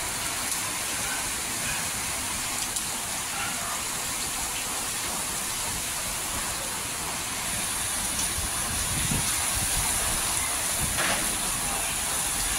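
Heavy rain pouring down in a steady hiss, growing a little louder about two-thirds of the way through.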